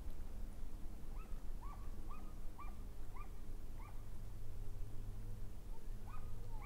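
A series of six short, hooked calls, about two a second, then one more near the end, from a distant animal, over a steady low rumble.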